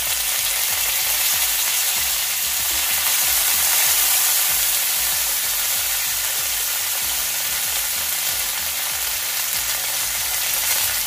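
Hot oil sizzling steadily in a frying pan as peanuts, cashews, garlic, dried red chillies and freshly added curry leaves fry in a tempering.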